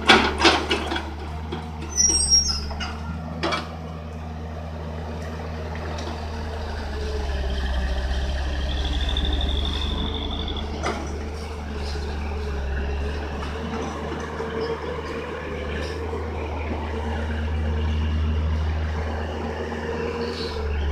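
Hyundai hydraulic excavator's diesel engine running, its drone swelling and easing as it works the boom and bucket, with clattering knocks in the first few seconds and a brief high whine near the middle.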